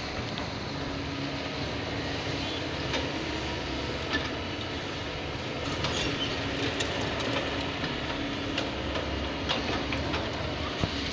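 Kobelco 220 hydraulic excavator working, its diesel engine running steadily under load, with scattered clanks and knocks from the machine as it digs.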